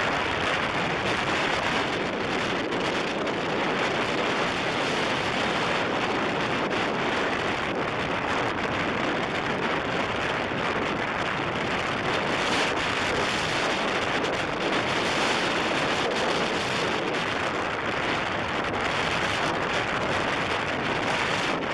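Strong storm wind blowing steadily across the microphone, an even rushing noise with no breaks.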